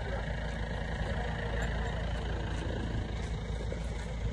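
Steady rumble of street traffic, with faint voices in the background.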